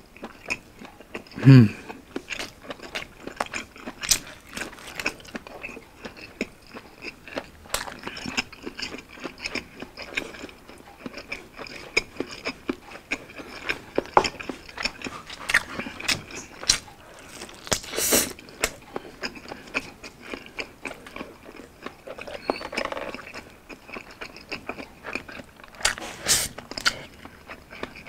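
Close-miked biting and chewing of a grilled Hungarian sausage and rice, heard as a steady run of sharp mouth clicks and crunches. A short hummed 'mm' comes about a second and a half in and is the loudest sound. A louder bite comes a little past halfway.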